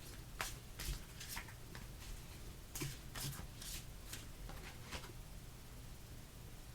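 Tarot cards being handled and laid down: a run of soft, short swishes and taps of card on card, stopping about five seconds in.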